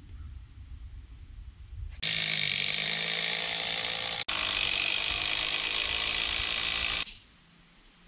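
A power tool runs loudly for about five seconds, starting and stopping abruptly, with a momentary drop-out partway through.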